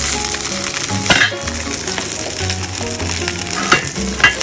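Background music over the sizzle of fish frying without oil in a stainless-steel Saladmaster electric skillet. A few sharp metallic clinks, the loudest near the end as the skillet's lid is lifted off.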